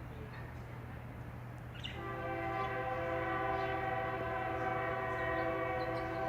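A horn sounds a long, steady chord of several notes held together, starting about two seconds in and still holding at the end, over a low steady hum.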